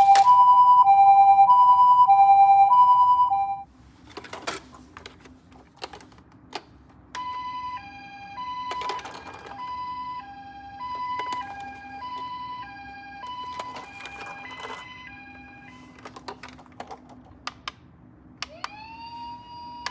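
Toy ambulances' electronic two-tone siren in the Japanese 'pee-po' pattern, a high and a low tone alternating. It cuts off sharply a few seconds in, leaving light plastic clicks and knocks. A quieter siren of the same kind runs through the middle, and near the end a tone slides up as another siren starts.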